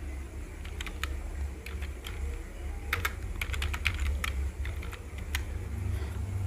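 Keys being typed: about a dozen short, irregular clicks as a ten-digit number is entered, bunched most tightly around the middle, over a low steady background rumble.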